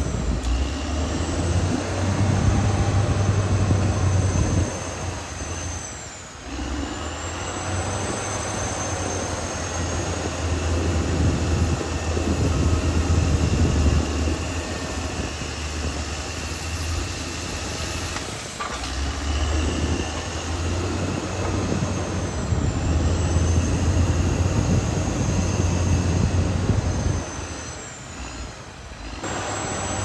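Caterpillar D6R XL crawler bulldozer working: a steady low diesel drone with a high squealing whine over it. The whine dips in pitch a few times, and the sound drops away briefly about a fifth of the way in and again near the end.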